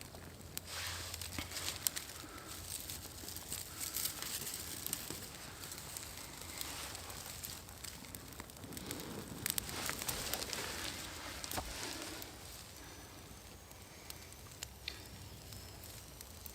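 Small fire of birch bark and dry twigs burning, crackling with scattered sharp snaps.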